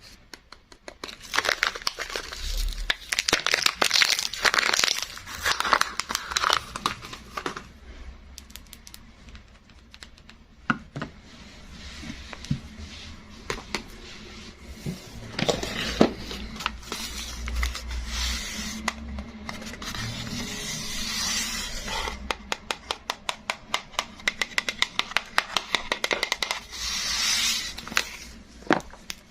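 Soap packaging being unwrapped by hand: wrapping crinkling and tearing in bursts. Near the end comes a run of quick clicks or taps.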